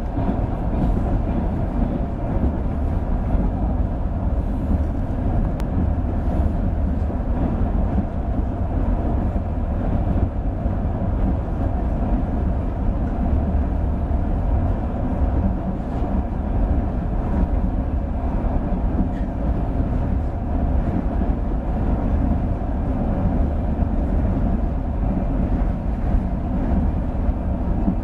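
Passenger train in motion, heard from inside the carriage: a steady noise of wheels on rails and coach movement.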